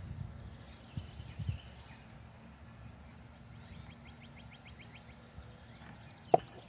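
Small birds calling faintly over a low rumble of wind on the microphone: a thin high note about a second in and a short rapid trill around four seconds in. A single sharp tap near the end is the loudest sound.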